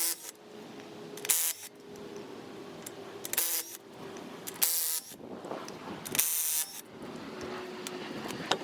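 A power tool running lug nuts onto a wheel in about five short bursts, each about half a second long, a second or two apart.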